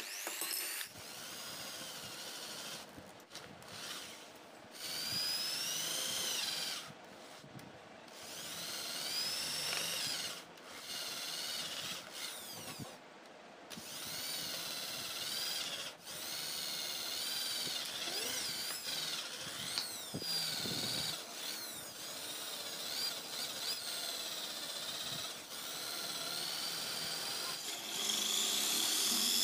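Corded electric drill boring into wood, its motor whine rising and falling in pitch as the bit bites and frees up. It stops and restarts several times, and runs louder and steadier near the end.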